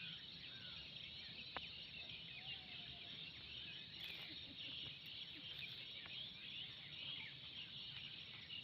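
Faint outdoor ambience: a steady chorus of high chirping from birds and insects, with a few scattered bird calls and faint taps.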